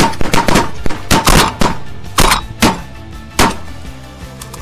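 A rapid, overlapping volley of shotgun blasts from several hunters firing at once at passing sandhill cranes, about a dozen shots in the first three and a half seconds, then the shooting stops. Background music plays underneath.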